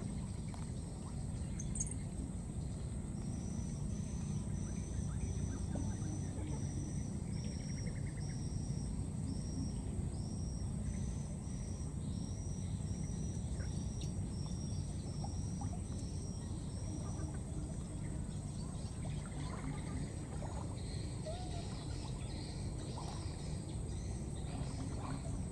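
Outdoor ambience: a steady low rumble, with a short, high chirp repeated every half-second or so for about fourteen seconds, then a few scattered faint calls near the end.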